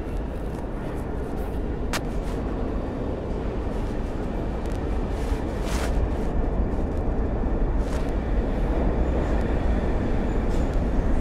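A New York City subway work train rolls past close by in an underground station: a steady low rumble of steel wheels on rail that slowly builds. Two sharp metallic clacks come about two seconds in and near the middle.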